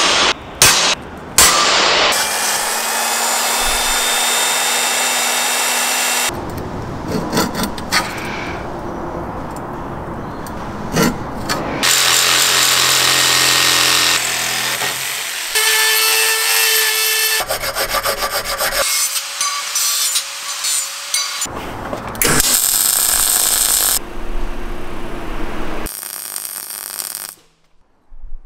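A run of short workshop tool sounds cut one after another, with sudden changes between them: power tools cutting and working steel, among them a jigsaw sawing through a steel bracket. The sound drops away shortly before the end.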